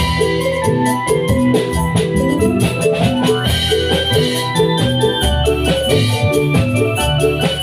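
Obrog music through a loud sound system: an electronic keyboard plays a busy organ-like melody over a bass line and a steady drum beat.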